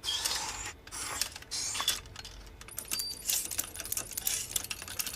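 Pneumatic robot worked by air-pressure artificial muscles: a rapid run of small mechanical clicks with short hisses of air as its limbs bend and straighten.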